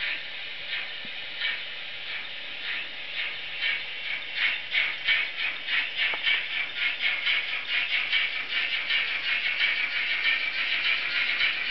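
Simulated steam exhaust chuffs from the DCC sound decoder of a model GWR 38xx-class locomotive, picking up pace as the engine pulls its train away: slow, spaced beats at first, quickening to a rapid beat of several chuffs a second.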